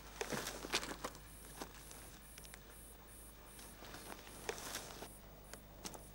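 Faint, scattered crunches and scuffs of movement on dry, stony ground. They are bunched in the first second and come again a few times after about four and a half seconds.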